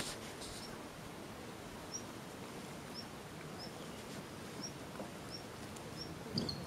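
A small bird calling with a short, high chirp repeated every second or less. Near the start come two brief hissing squirts, fitting a hand spray bottle of lice treatment being sprayed onto a puppy's coat.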